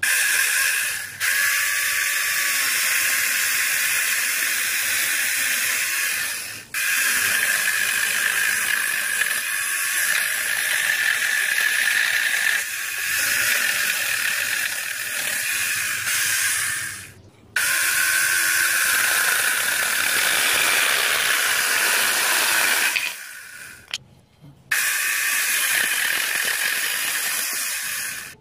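Homemade electric chainsaw, a 775 DC motor driving a chain round a bar, running at speed and cutting through green branches and a log: a high, steady whine with the rasp of the chain in the wood. It breaks off briefly a few times.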